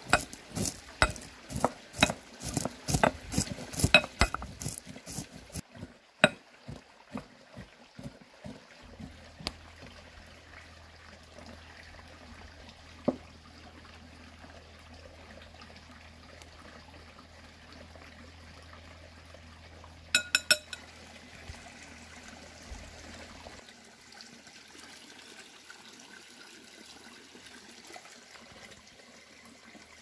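Walnut halves crushed with a small cut-glass tumbler in a glass bowl: a quick run of sharp knocks and crunches, about two a second, that thins out over the first several seconds. Then low background sound, with a brief cluster of clicks about twenty seconds in.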